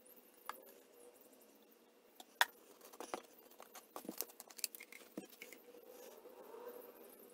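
Faint scattered clicks and taps from a plastic oil bottle and funnel as motor oil is poured slowly into a scooter engine's oil filler, the loudest tap about two and a half seconds in.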